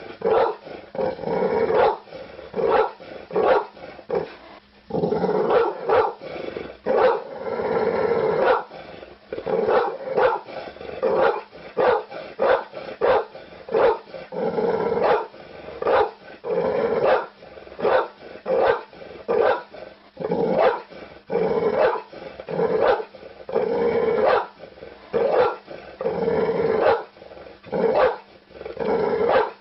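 A dog barking over and over, about one to two barks a second, with a few longer, drawn-out growling stretches between the barks.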